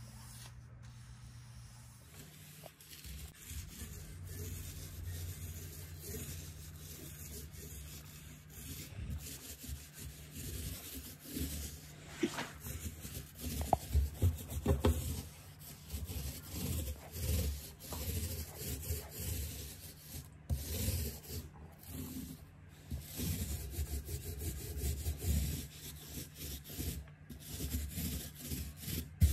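Small paint roller rolling paint onto the painted wooden panels of a kitchen island: repeated back-and-forth rubbing strokes, starting about two seconds in, with spells of louder, quicker strokes.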